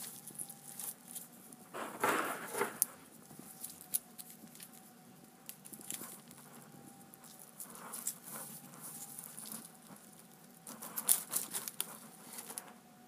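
Crumpled aluminium foil crinkling and rustling in irregular bursts as it is pulled apart and poked with tongs, with sharp clicks; the loudest bursts come about two seconds in and near the end.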